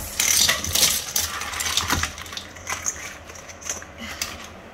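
Mixed shellfish (clams, crabs and lobster) tipped from a stainless-steel bowl into a cooking pot, the shells clattering and clinking against the metal. The clatter is densest for about the first two seconds, then thins out to scattered clicks as the pieces settle and are moved by hand.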